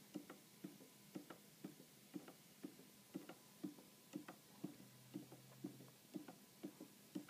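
Handmade wooden Kairos pendulum clock ticking faintly and steadily, about two ticks a second, its wooden escapement clicking on each swing of the pendulum.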